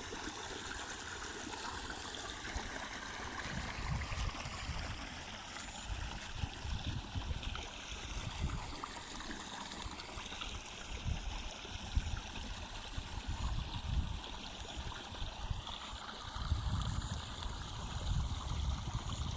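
Steady outdoor rushing noise with irregular low rumbles throughout, and a faint thin high tone held steady above it.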